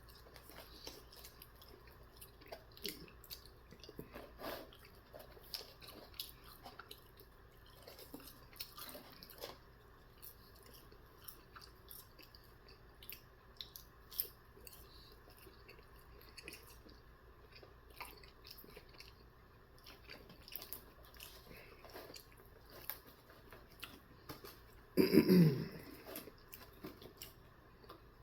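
A person chewing and eating sauce-coated garlic parmesan chicken nuggets, with many small scattered mouth clicks. A single louder vocal sound, about a second long, comes near the end.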